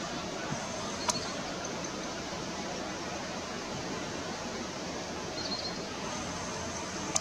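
Steady outdoor background hiss, with one sharp click about a second in and faint high chirps about a second in and again around five and a half seconds.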